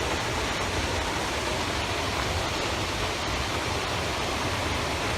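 Rifle Falls, a waterfall, pouring steadily in a constant rushing hiss.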